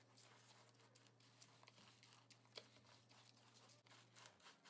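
Near silence, with faint scattered rustles and light ticks of dry oats, grated coconut and seeds being stirred by hand in a plastic bowl.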